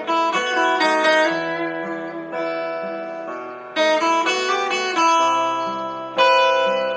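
Music on a plucked string instrument: chords struck and left to ring and fade, several in quick succession in the first second, then fresh chords about four, five and six seconds in.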